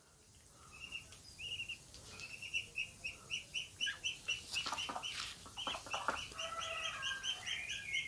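Ducklings peeping: a steady run of short, high peeps, a few a second, starting about a second in and coming faster in the second half, with a few sharp clicks near the middle.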